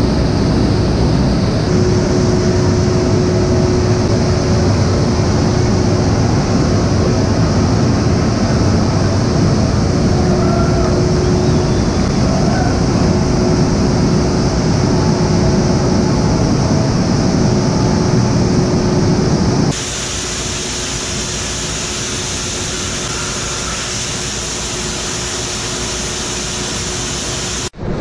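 Loud, steady rush of the Laussa waterfall and its whitewater churning in the plunge pool, heard close up. About two-thirds of the way through it drops in level and turns hissier.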